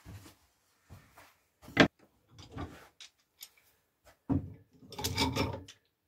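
Thin wooden strips being set down and shifted on a wooden board on a workbench: scattered knocks with one sharp knock about two seconds in, and a longer scraping rub near the end.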